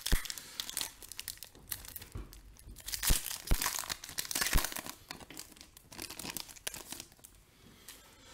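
Foil wrapper of a Panini Optic basketball card pack crinkling and tearing as it is opened by hand, in irregular crackles with a few sharper snaps, fading to quieter rustling near the end.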